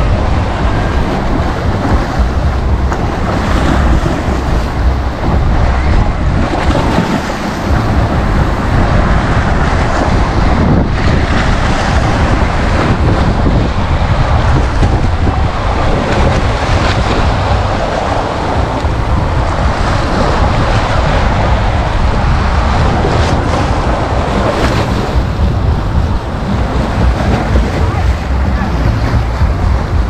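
Sea waves breaking and washing up against the sea-wall steps in a continuous, gently surging rush, with wind buffeting the microphone.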